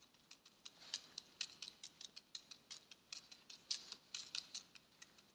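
Faint, sharp, irregular clicks and ticks, about two to four a second.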